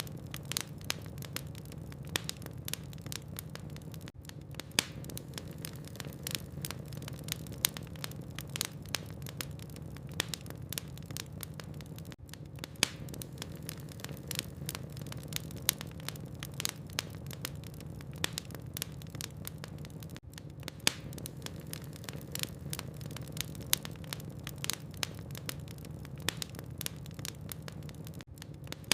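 Wood fire burning in a fireplace: logs crackling with many sharp pops and snaps over a steady low hum.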